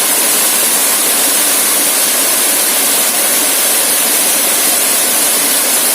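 Waterfall rushing close by: a steady, loud hiss of falling water with no change.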